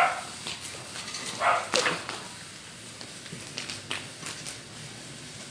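Wood bonfire crackling, with irregular sharp pops. A brief voice-like call sounds about a second and a half in.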